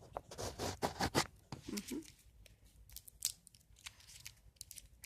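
Cough drop wrappers being torn open and crinkled: a run of sharp crackles and rustles, with a brief murmured voice about two seconds in.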